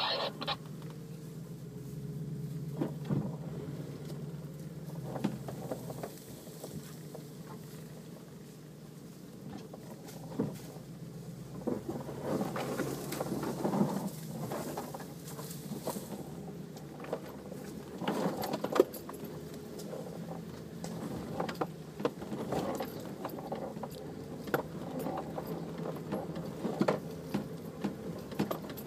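A 4x4's engine running steadily at low revs as it crawls over rough ground, with frequent knocks and rattles from the vehicle over the top.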